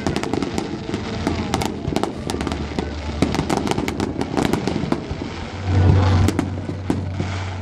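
Fireworks display: a dense run of rapid cracks and bangs from bursting shells, with a heavier, louder low boom about six seconds in.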